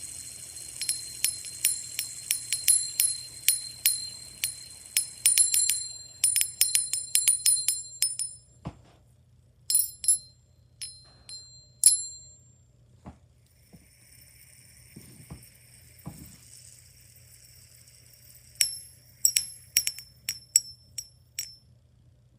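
Small hard objects clicking and clinking together, each strike with a brief high metallic ring: a fast run of clicks at first, then scattered single clinks, then another quick run near the end.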